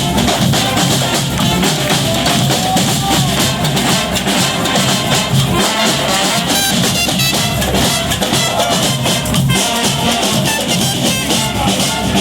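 Brass band playing live: horns over a steady drum beat.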